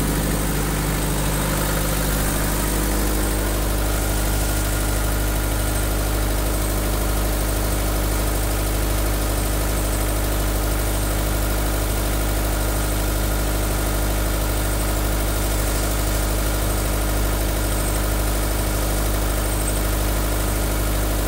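Old diesel generator set running steadily with a low hum, powering a refrigerated shipping container.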